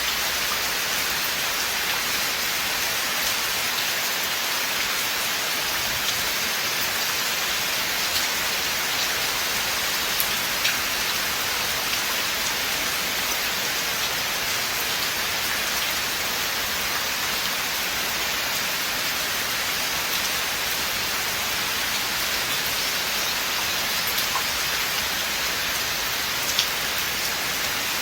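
Steady rain falling in a forest, an even hiss of many drops with a few separate drop ticks on leaves and surfaces.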